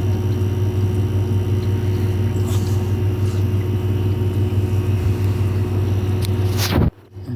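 Steady low vehicle engine drone, which drops away suddenly near the end.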